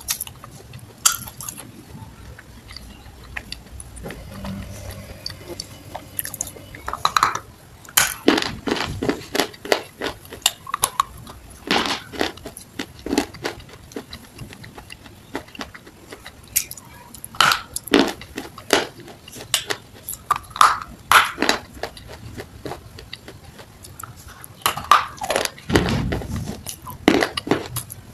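Close-miked ASMR eating: a person chewing and crunching food right at the microphone, with sharp, irregular crunches and wet mouth clicks. They are sparse for the first several seconds, then come thick and fast.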